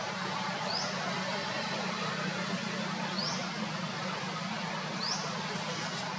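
Outdoor ambience: a steady low hum and hiss, with a bird giving three short rising chirps about two seconds apart.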